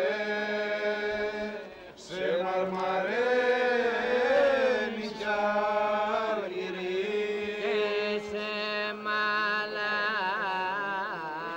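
A slow chant: a voice sings a drawn-out, ornamented melody over a steady held drone note, with a short pause between phrases about two seconds in.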